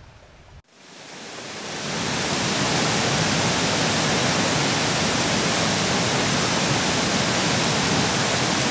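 Water of the River Calder pouring over a mill weir: a steady rushing noise that fades in over the first two seconds and then holds level.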